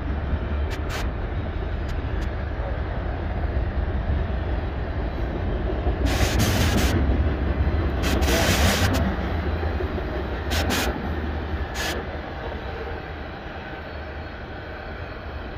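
Freight train cars rolling past, mostly covered grain hoppers: a steady low rumble of wheels on rail. Two louder, harsh stretches come about six and eight seconds in, and a few short clanks around eleven and twelve seconds. The sound eases off near the end.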